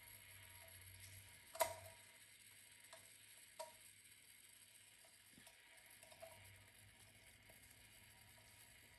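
A few faint, irregular metallic clicks of a fine hand tool against a small brass clock case and movement, the loudest about one and a half seconds in and another about two seconds later, over a low steady hum.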